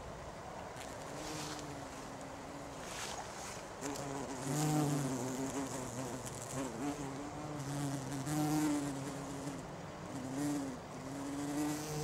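Bumblebee buzzing, a low hum that wavers in pitch and comes and goes, swelling louder about four and about eight seconds in.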